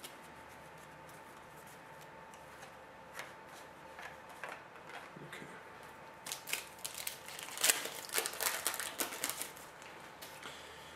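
Trading-card pack wrapper and cards being handled: soft crinkling and light clicks, sparse at first and busier from about six seconds in, over a faint steady hum.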